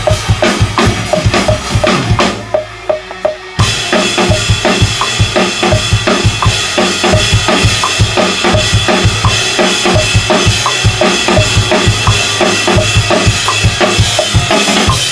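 Full acoustic drum kit played in a steady groove: kick drum and snare hits, with cymbals crashing in and washing over the beat about three and a half seconds in.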